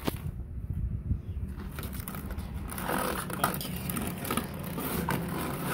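Phone microphone rubbing and scuffing against fabric as it is handled, with irregular rustles and a few small clicks over a steady low hum.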